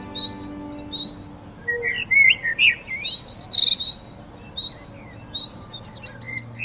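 Small birds chirping and singing, a run of quick rising and falling chirps about two to three seconds in being the loudest, with scattered shorter calls around it.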